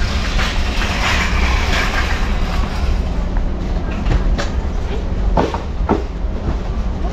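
Shopping cart wheels rolling and rattling over a concrete floor in a steady low rumble, with a few sharp knocks in the second half.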